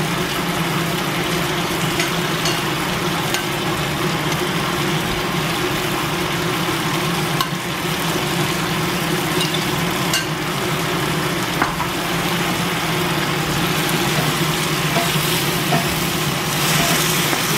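Bok choy and scallops sizzling as they stir-fry in a wok, turned with wooden spatulas that knock against the pan a few times, over a steady low hum.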